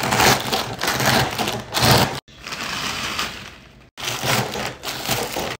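Hands crushing Cheetos inside their sealed plastic bags: the bags crinkling and the chips crunching. It comes in three stretches, each one stopping abruptly.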